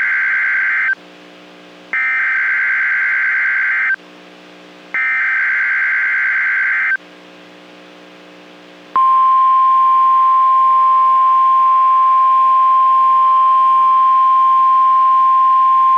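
NOAA Weather Radio SAME alert header: three loud bursts of shrill digital data, each about a second long and a second apart. About nine seconds in, the steady 1050 Hz Warning Alarm Tone starts and holds. Together these encode and announce a new alert, here a Tornado Watch.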